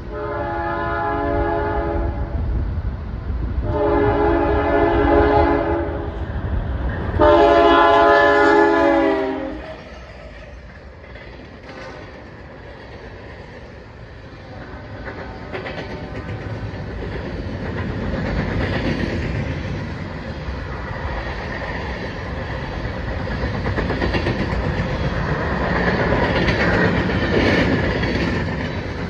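A locomotive horn sounds three long chord blasts in the first ten seconds. Then a string of empty covered grain hopper cars rolls past with steady wheel clatter that grows louder toward the end.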